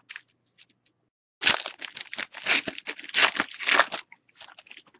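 Wrapper of a 2012 Panini Crown Royale football card pack being torn open and crinkled. A dense crackling run starts over a second in and lasts about two and a half seconds, followed by a few fainter crinkles.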